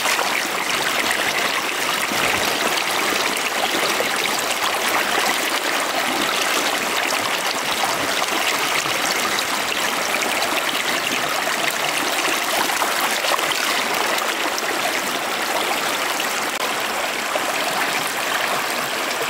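Fast river water rushing and splashing steadily over and through a bamboo-slat fish trap.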